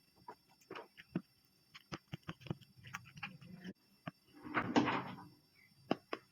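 Scattered small clicks and taps of objects being handled, with a louder, longer noisy rustle about four and a half seconds in.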